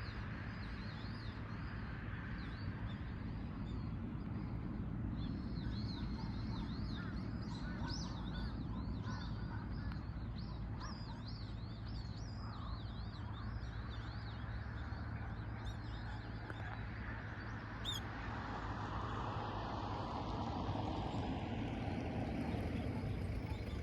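Outdoor ambience: small birds chirping in many short, quick notes, thickest through the middle, over a steady low rumble of wind and distant traffic. A broad swell of noise builds in the last few seconds.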